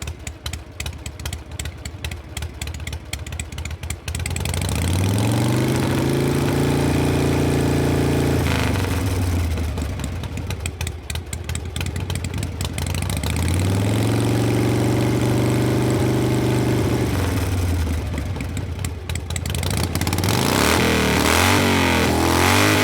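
Harley-Davidson motorcycle's V-twin engine idling with an uneven, pulsing beat, then revved twice, each time rising in pitch, holding high for a few seconds and falling back to idle. Near the end, overlapping rising and falling tones set in.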